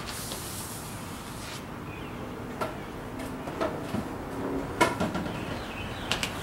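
Large sheet of 3M Scotchgard Pro gloss paint protection film being unrolled off its cardboard tube and handled, rustling, with a few sharp clicks and knocks, the loudest about five seconds in.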